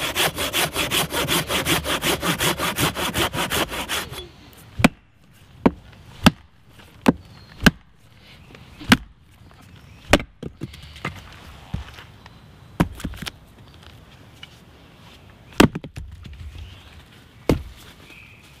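Curved Japanese pull saw cutting through a log with fast, even strokes for about four seconds. Then a small axe strikes wood about ten times at uneven intervals, chopping and splitting a short round of wood.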